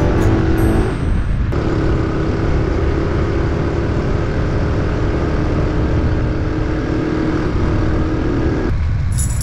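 A small motorcycle engine running steadily under rushing noise, with a steady hum that drops away near the end.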